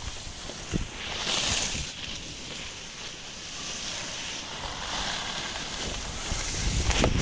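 Skis hissing and scraping over snow, swelling twice, with wind buffeting the microphone and a couple of sharp knocks.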